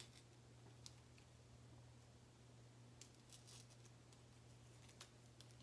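Near silence: room tone with a steady low hum and a few faint small clicks and rustles, about a second in, around three seconds and near five seconds, from fingers handling a small craft piece.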